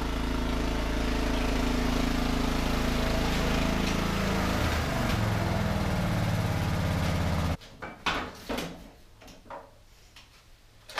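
Lawn tractor's 18 hp Briggs & Stratton Intek engine running steadily, dropping in pitch about halfway through as it slows, then shut off abruptly about two-thirds of the way in. A few sharp knocks and clatter follow as the tractor's hood is lifted.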